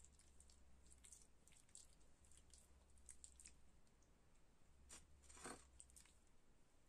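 Faint, wet squishing and crackling of a green herbal paste being rubbed over the skin of the back of a hand, a scatter of soft short crackles with one louder one about five and a half seconds in. A low steady hum sits underneath.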